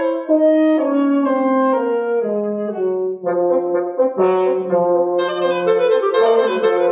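Woodwind quintet of flute, oboe, clarinet, French horn and bassoon playing a chamber piece together, the lines moving in separate notes; the sound grows fuller and brighter about three seconds in.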